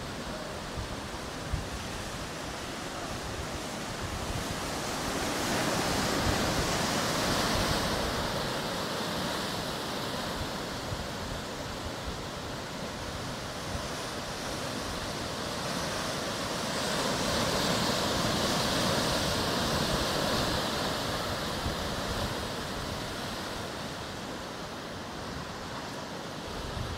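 Ocean waves breaking on the shore: a steady wash of surf that swells up twice, a few seconds in and again past the middle, each time easing back.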